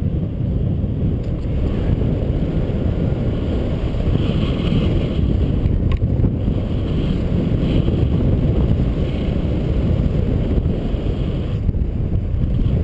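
Wind buffeting the microphone of a camera on a paraglider in flight: a steady, heavy low rumble. A single light knock comes about halfway through as a gloved hand touches the camera.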